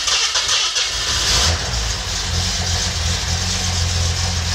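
Freshly rebuilt Datsun L28 straight-six on its first start: the starter cranks it and it catches about a second in, the starter cuts out, and the engine runs on steadily.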